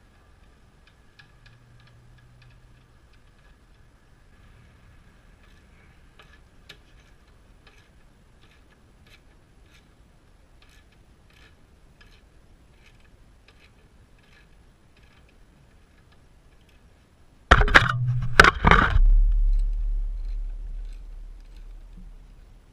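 Faint, even ticking, then about eighteen seconds in a quick run of three or four loud knocks and a clatter whose low ring dies away over a few seconds.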